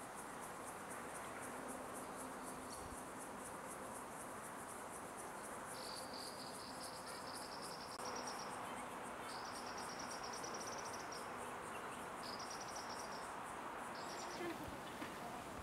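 Insects chirping: a fast, evenly pulsed high chirp that runs on without a break, joined from about six seconds in by a lower trill that comes in four bursts, each lasting half a second to about two seconds.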